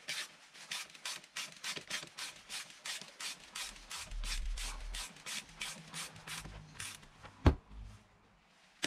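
Torque wrench ratcheting in quick short strokes, about three to four a second, as it runs a greased suspension bearing bolt in on an e-mountain bike; a sharp, louder click about three-quarters of the way through marks the wrench reaching its set 18 Nm.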